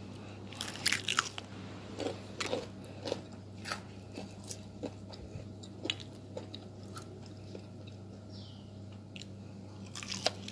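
Crispy spice-coated fried chicken crunching and crackling in a string of sharp crunches, bunched in the first few seconds and again near the end, over a faint steady low hum.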